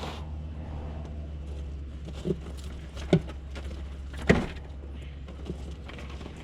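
Fish being laid down one after another on a surface: a few short thuds, the loudest about two-thirds of the way in, over a steady low hum.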